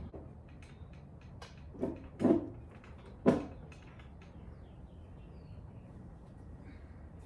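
Hard plastic parts of a large animatronic prop knocking and clicking as the head is worked into place: three louder knocks close together around two to three seconds in, with light clicks around them.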